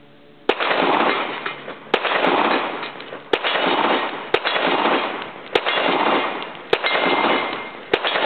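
Colt Gold Cup National Match .45 ACP 1911 pistol fired seven times at a steady pace, a shot about every 1.2 seconds, each report trailing off in a long echo.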